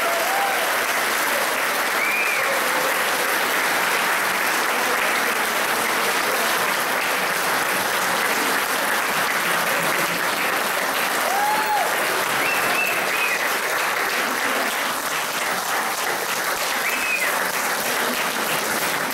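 A large audience applauding steadily, a long unbroken round of clapping.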